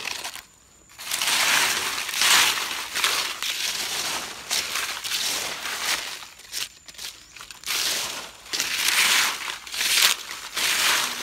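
Dry fallen leaves crunching and crackling as they are pushed and swept aside, in several long bursts starting about a second in.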